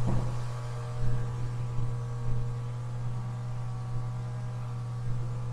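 Steady low electrical hum with a few fainter steady higher tones over it, and a few soft bumps.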